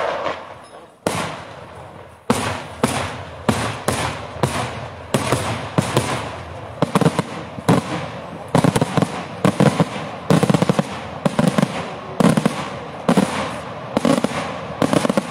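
Daytime fireworks: aerial shells bursting in a rapid series of loud bangs, each with a rolling echo. The bangs are spaced out at first and then come about two or three a second.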